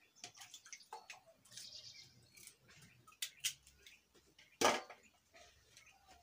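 Small wet splashes and drips with scattered light clicks as potatoes are handled in metal pots of water, with one sharper knock a little past halfway.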